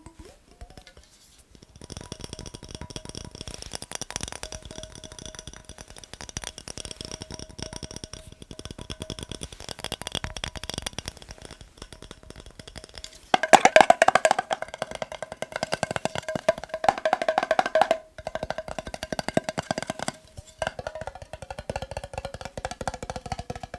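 Rapid, continuous tapping on a glass mason jar, each tap making the jar ring with steady tones. The tapping pauses briefly a few times and grows louder for several seconds about halfway through.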